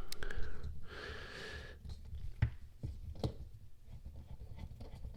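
Screws being driven into a Demko AD20S pocket knife with a small Torx driver: faint handling noise and three sharp light clicks of the driver and hardware about two and a half to three and a half seconds in, after a short breathy sound near the start.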